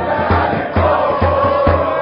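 Crowd of football ultras chanting together in a packed metro car, over a heavy beat about twice a second.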